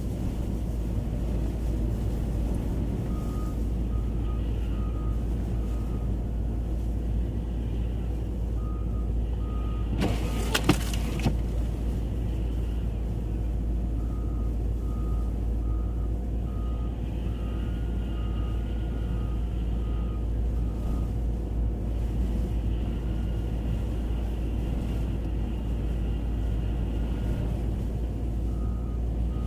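Steady low rumble of a vehicle heard from inside the cabin, with a short high electronic beep repeating in runs of several that stop and start. There is a brief clatter about ten seconds in.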